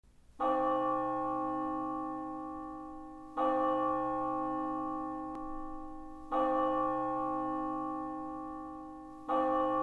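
A bell tolling four times at the same pitch, about three seconds apart. Each strike rings on and slowly fades until the next.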